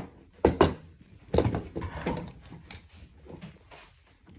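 Hard plastic tool parts knocking and clicking as one part is worked into its slot and seated: a few sharp knocks, then a quick cluster of knocks and rattles, then lighter ticks.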